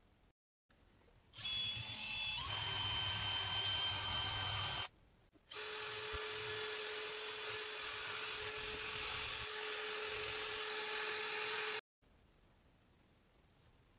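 Small handheld rotary power tool running against the steel head of a golf wedge, working the rusty metal. It runs in two stretches with a steady whine: about three and a half seconds, then a brief gap, then about six seconds. Each stretch cuts off suddenly.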